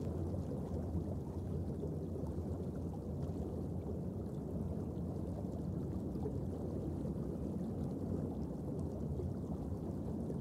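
Underwater ambient noise on a coral reef: a steady low rumble with faint scattered clicks.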